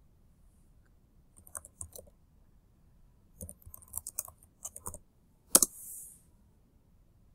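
Computer keyboard typing: two short runs of keystrokes, then one louder keystroke about five and a half seconds in, followed by a brief soft hiss.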